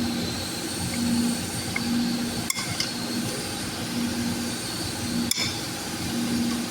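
Shop air compressor running steadily with a pulsing hum about once a second, and a few sharp metal clinks, about two and a half and five seconds in, from transmission parts being handled.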